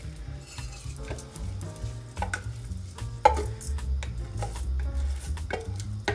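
A spoon stirring rice in a pot with a light sizzle of hot oil, with a few sharp knocks of the spoon against the pot, the loudest about three seconds in. Background music plays underneath.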